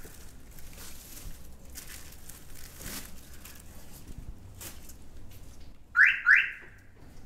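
Two short, loud chirps in quick succession about six seconds in from a car's alarm siren as the remote unlocks it. Faint scattered ticks come before them.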